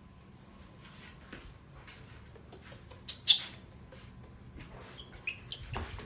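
Baby monkey giving short, high-pitched squeaks, the loudest about three seconds in, among light clicks and rustles of handling, with a dull thump just before the end.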